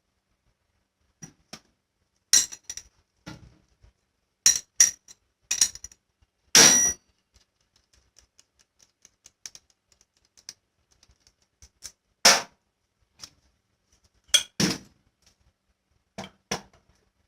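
Scattered metal clinks and clanks, single sharp knocks with silence between rather than a steady running rhythm. The loudest comes about two-thirds of the way through the first half and rings briefly, and a few fainter ticks fill a quiet stretch in the middle.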